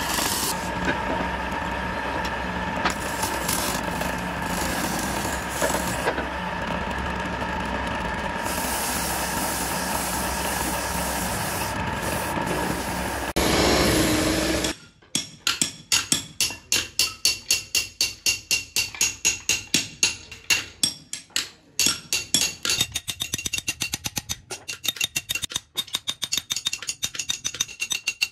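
A belt-driven wood lathe runs with a hand gouge scraping the spinning wooden tray blank. About halfway through this cuts off and gives way to rapid, even taps of a hammer on a chisel carving a pattern into a wooden tray, about three to four a second.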